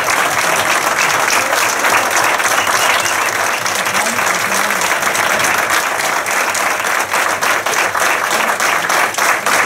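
Steady applause from many people clapping, with a few voices mixed in.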